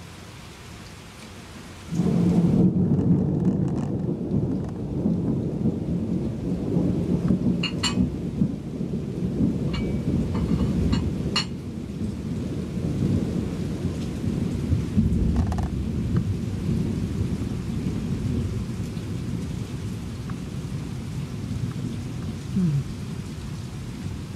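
Steady rain, then a sudden thunderclap about two seconds in that rumbles on, slowly fading.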